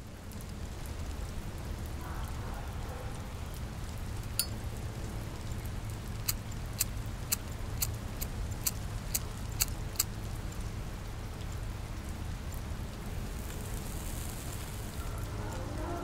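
Steady rain with a low rumble underneath. In the middle come a dozen or so sharp, separate clicks, and near the end a brief high hiss.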